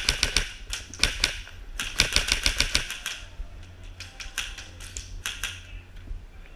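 Airsoft guns firing as sharp clicking shots, mostly in short rapid bursts. The densest burst comes about two seconds in, followed by scattered single shots.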